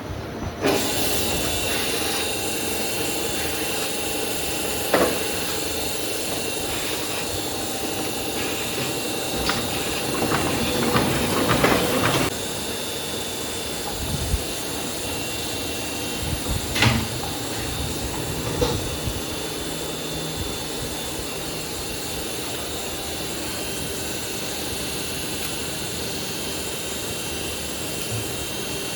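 Offset printing press running: a steady mechanical whirr of rollers and drive, broken by a few sharp clacks at irregular moments.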